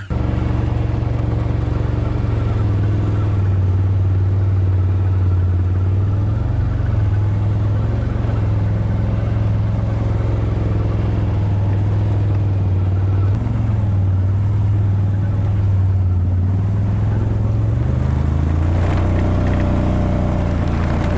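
A vehicle engine running steadily while under way, its pitch shifting about 13 seconds in and again near 18 seconds as the speed changes.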